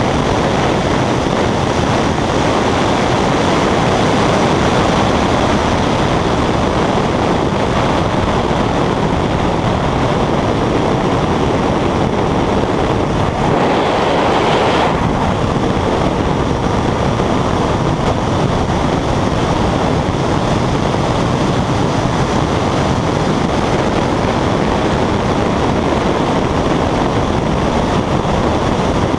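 Steady driving noise from a moving vehicle: engine, road and wind noise without a break, with a brief louder rush about halfway through.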